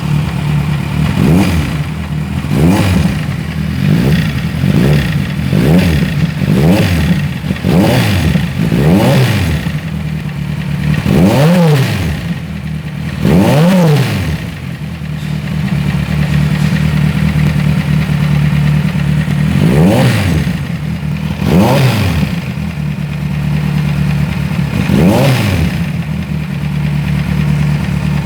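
Kawasaki Z1000 inline-four engine idling and revved in a dozen or so short throttle blips, each rising and falling in pitch. The engine has a mechanical noise that persists even after its timing was corrected, which the mechanic puts down to damaged internal parts.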